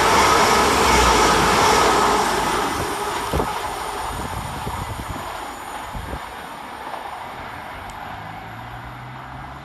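Two coupled Class 197 diesel multiple units running through the station, loud at first and then fading steadily as the train draws away, with a few faint knocks partway through.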